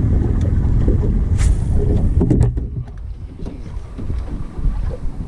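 Wind buffeting the microphone, a heavy low rumble that drops off about halfway through. Just before it eases there is a quick swish and a few sharp clicks from a lure being cast with a spinning rod and reel.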